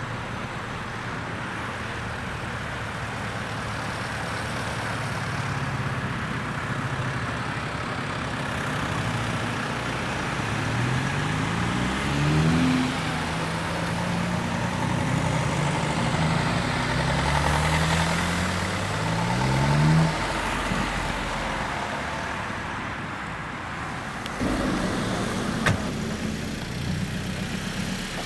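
Alfa Romeo car engines running over a steady background of engine noise. An engine is revved twice with a rising pitch, about a third of the way in and again about two-thirds in, and a short knock follows near the end.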